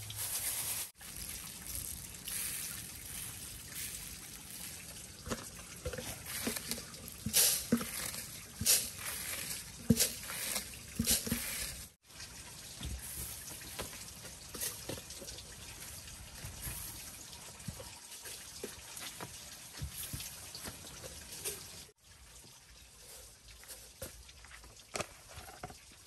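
Light grain and hand sounds on a large woven bamboo tray: a trickling, pattering rustle with many small clicks and knocks, most of them in the first half.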